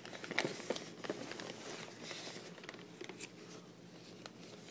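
Contents of a fish shipping box being handled: light rustling of plastic and paper with scattered small clicks and taps, busiest in the first couple of seconds.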